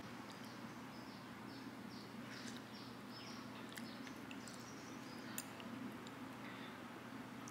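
Faint, high, short chirps repeated about three times a second for the first few seconds, like a small bird calling, over a faint steady hum. A metal spoon clinks lightly against a ceramic bowl about five seconds in.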